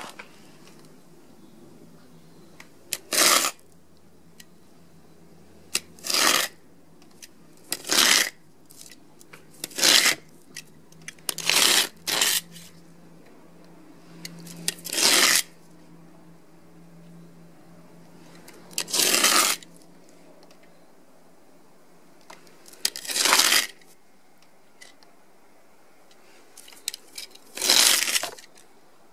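A thin printed sheet being ripped by hand, in about nine short tears spaced a few seconds apart, each lasting about half a second.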